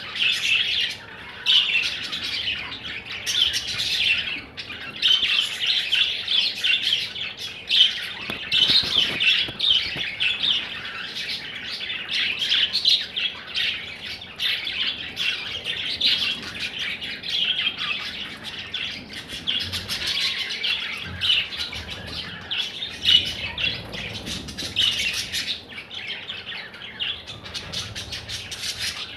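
Pet budgerigar (budgie) warbling and chirping in a continuous, rapid chatter, with louder chirps standing out every few seconds: the warbling song of a contented budgie.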